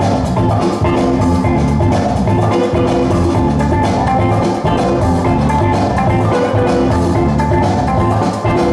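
A DJ's break-beat music for breakdancing, played loud, with a steady, repeating drum beat under pitched instrument notes.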